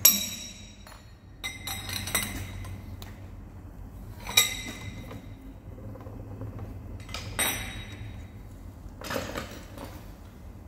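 Steel parts and tools being handled: about six sharp metallic clinks and clanks, irregularly spaced a second or more apart, each ringing briefly, over a low steady shop hum.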